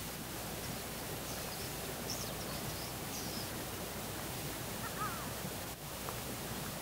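Steady outdoor background hiss with a few faint bird chirps, a cluster about one to three seconds in and another about five seconds in.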